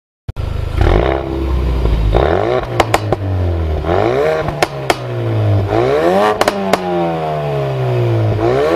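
A car engine revving hard and accelerating, its pitch climbing and dropping several times as if shifting up through the gears, with a few sharp exhaust pops in between.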